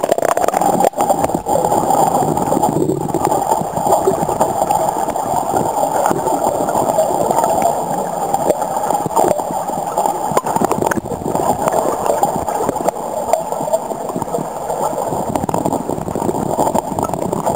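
River water rushing and gurgling steadily, as in a rapid, with a few brief knocks.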